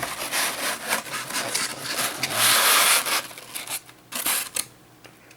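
Protective packaging rubbing and scraping as a boxed mug is worked out of it, with the loudest scrape about two and a half seconds in and a short one a little after four seconds.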